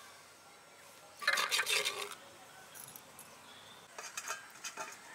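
A burst of rustling and light clinking about a second in, then softer rustles and clicks near the end, as a bunch of leafy greens is handled over a steel bowl.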